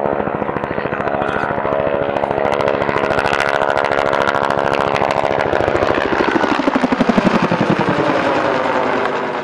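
Bell AH-1 Cobra attack helicopter flying a low, close pass: the two-blade main rotor's rapid, loud blade slap, the classic Huey sound, over the whine of its single engine. The pitch falls as it passes, the sound peaks a couple of seconds before the end, then fades as it climbs away.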